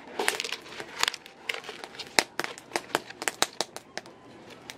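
Banana leaf crinkling as it is pressed by hand into a clay pot, with the irregular sharp pops of a wood fire crackling throughout.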